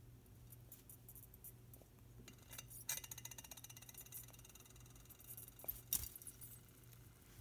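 A bird's beak pecking food from a glass bowl: light clicks and clinks against the glass. About three seconds in comes a quick run of rapid ticks, and a sharper knock follows about six seconds in.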